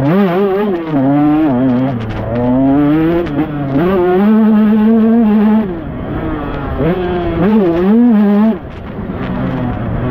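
125cc two-stroke motocross bike engine revving up and down repeatedly on and off the throttle. It holds steady at high revs for about two seconds midway, then drops off sharply near the end.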